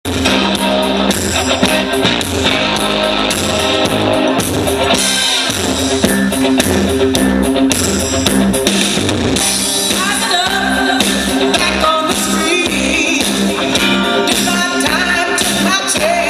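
Recorded blues-rock track with guitar, bass, drums and singing, played back.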